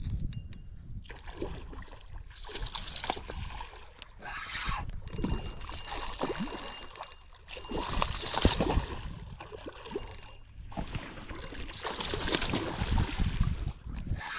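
River water splashing and sloshing in irregular bursts every few seconds, over a low steady rumble.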